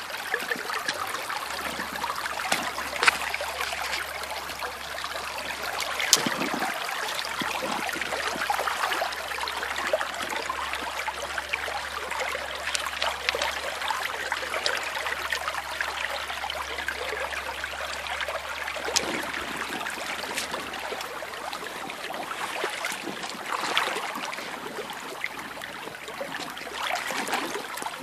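A shallow creek runs steadily over a gravel and pebble bed. Now and then there are sharp splashes and knocks from wading boots and hands moving the stones in the water.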